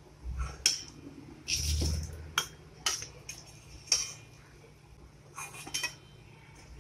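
Metal spatula clinking and scraping against a metal kadai and a steel plate while fried kachoris are lifted out of the oil: several scattered clinks, with a longer scrape about two seconds in.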